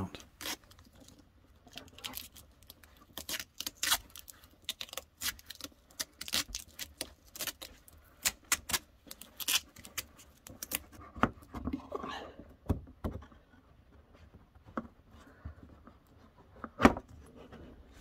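Yellow 12/2 NM-B electrical cable being handled and fed down into a wall cavity: irregular clicks, crinkles and scrapes of the plastic-sheathed cable in the hands, sparser in the second half, with one sharper click near the end.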